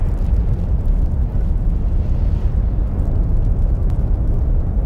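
Loud, steady deep rumble.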